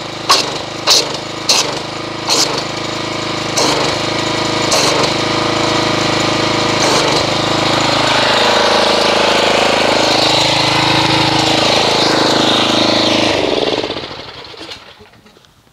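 Pressure washer running with its wand jetting water into a bucket of soapy water, churning it into foam. Irregular sharp splashes cut through the steady run in the first several seconds, the pitch sags and recovers, and the machine winds down near the end.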